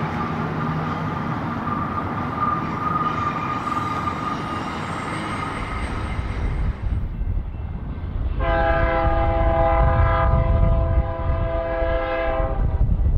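Freight train rolling on the rails with a steady high wheel squeal that fades out after about six seconds. A low rumble then builds, and a locomotive's multi-chime air horn sounds one long chord of about four seconds.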